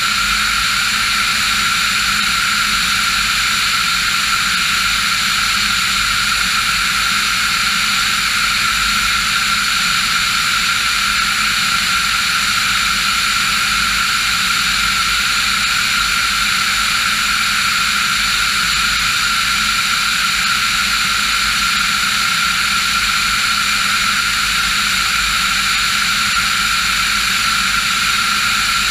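Diamond DA40 NG light aircraft in flight: its turbocharged diesel engine and propeller running steadily at a constant setting, a loud even drone with a high whine over it and no change in pitch.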